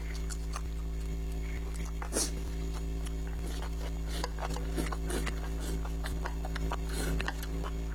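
Close-miked eating sounds: irregular wet mouth clicks and chewing smacks, the loudest about two seconds in and again near seven seconds, over a steady low hum.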